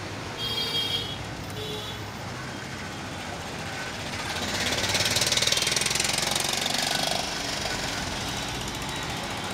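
Steady city street traffic, the engines of passing cars, auto-rickshaws and motorcycles. Two brief high-pitched tones come about half a second and a second and a half in. In the middle a motorcycle passes close, its engine loudest with a fast rattling pulse, then fades back into the traffic.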